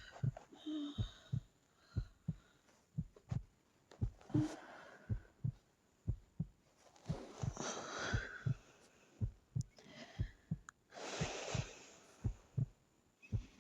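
A sleeping woman breathing slowly, three long soft breaths a few seconds apart, over a steady pulse of short low thumps about twice a second.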